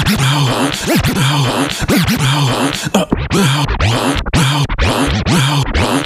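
Vinyl record scratched on a turntable: novelty body-noise samples cut back and forth in quick strokes over a repeating beat.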